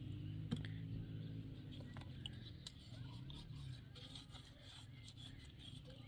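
Faint clicks and taps of hands working a plastic tap fitting at a water tank's outlet, a sharp click about half a second in. Under them is a low hum that fades over the first two seconds.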